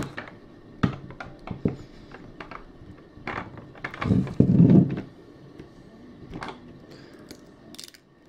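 Fingers picking at and peeling the protective plastic film off a Mophie Power Boost 5200 mAh power bank: scattered small clicks and taps of fingernails and the device's casing, with a louder spell of handling and rubbing about three to five seconds in.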